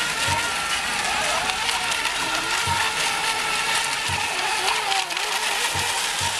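Several electric ECO Mini class RC racing boats running at speed: a steady high motor whine mixed with hiss, some of the pitches wavering up and down.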